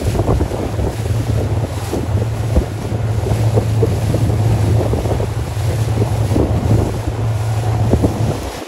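Wind buffeting the microphone over choppy sea water, with a steady low hum underneath and scattered small knocks and slaps.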